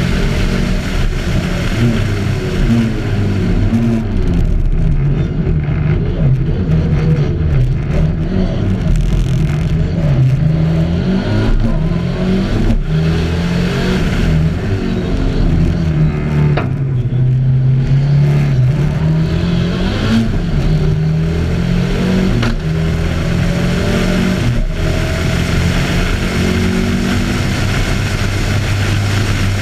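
Audi Quattro A2 Group B rally car's turbocharged five-cylinder engine driven hard at racing speed, its note climbing under acceleration and dropping back at each gearshift or lift, over and over.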